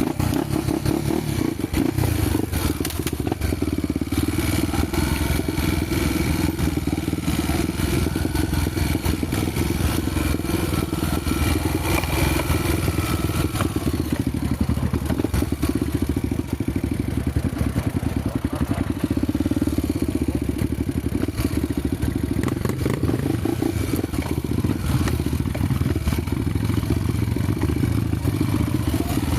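Honda motorcycle engine running continuously while riding an off-road dirt trail, with clattering from the bike over rough ground.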